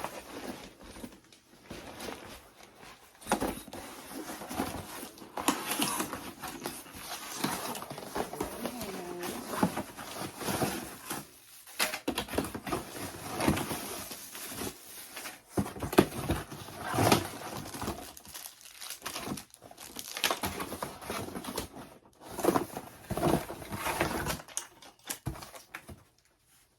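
Plastic packaging crinkling and rustling as ring light accessories are unwrapped and handled, with scattered light knocks and clicks of parts being set down.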